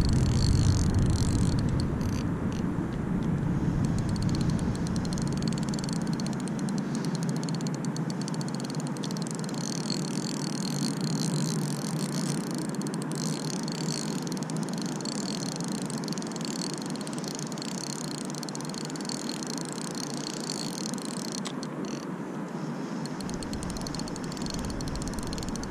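Steady outdoor noise of wind on the microphone and a distant traffic hum, with a high, fine whir from a spinning reel being cranked through the retrieve; the whir breaks off briefly near the end.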